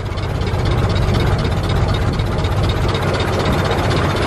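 A 1914 Ford Model T's four-cylinder engine running as the car drives along, a steady low rumble with vibration, heard from the car's open seat.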